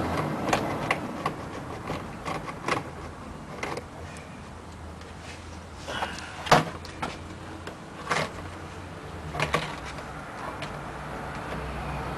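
Scattered sharp clicks and knocks of hand work on car parts, irregular, the loudest about six and a half seconds in, over a steady low hum.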